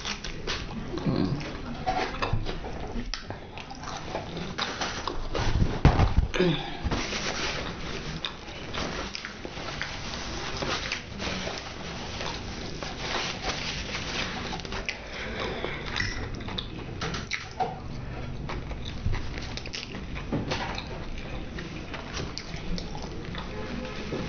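Close-miked chewing and wet mouth sounds of a person eating cheese-covered fried chicken, a dense run of irregular smacks and crackles, with a louder low thump about six seconds in.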